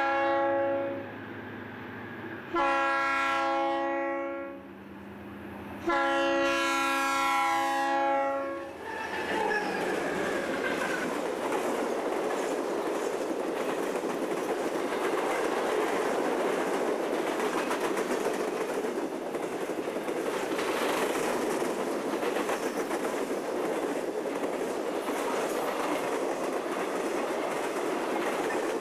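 Conrail freight train's multi-chime air horn sounds three blasts as it approaches a grade crossing, the second and third longer than the first. The train then rolls by, with a steady rumble and clatter of hopper cars and boxcars on the rails.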